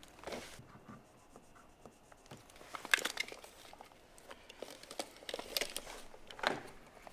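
Light handling sounds at a window frame: soft rustles with clusters of small clicks and ticks, the loudest about three seconds in.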